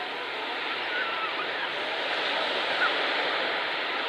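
Gentle sea surf washing steadily onto a beach, with a few brief faint calls, likely beachgoers' voices, cutting through now and then.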